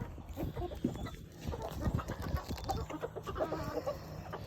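Backyard chickens clucking, with short brief calls and scattered small clicks.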